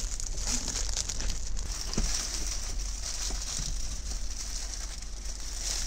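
Foil-faced insulation sheet crinkling and rustling as it is handled, a dense crackle that stops near the end.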